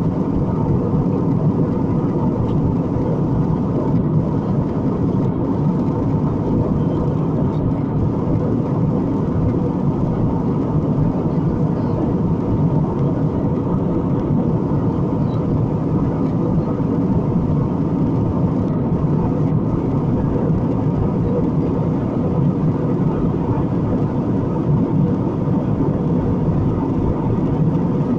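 Steady cabin noise of an Airbus A320-family jet airliner at cruise altitude, heard inside the cabin: an even, unbroken drone of engines and rushing air, with a faint steady hum in it.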